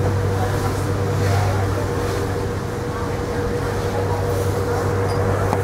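Boat engine running under way: a steady low drone with a thin, even hum above it, over a rushing hiss of wind and water.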